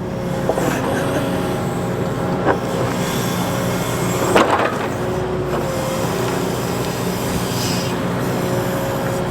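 Excavator engine running steadily with a steady whine, and three short knocks from the bucket, the loudest about four seconds in, as the operator works to free a frozen chunk of dirt stuck in the bucket.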